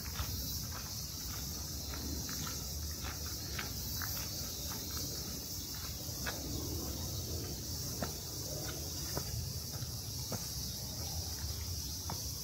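Footsteps of a person walking, about two steps a second, over a steady high-pitched chorus of insects and a low steady city rumble.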